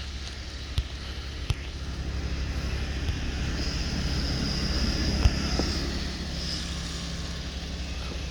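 Snow blower engine running steadily, growing a little louder midway, with a thin high whine for a couple of seconds and a few sharp clicks.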